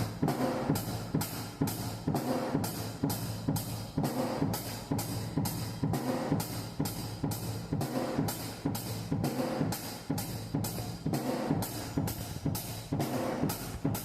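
Drum kit played in a steady groove, with cymbal or hi-hat strokes about twice a second over kick-drum thumps.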